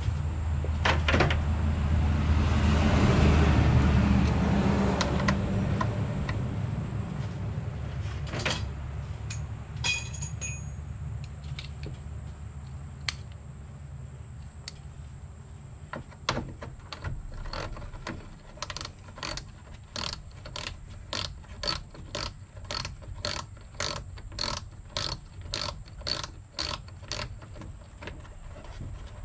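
Ratchet wrench clicking in short strokes, about two clicks a second through the second half, as bolts on the radiator fan of a Mazda B2600 pickup are undone. A steady low hum runs underneath, with a louder rushing noise in the first few seconds.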